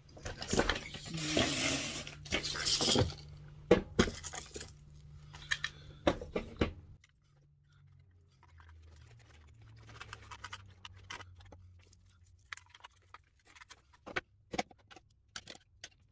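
Small metal parts and hand tools being handled on an RC car's drivetrain: a rustle for the first few seconds, then scattered light clicks and knocks.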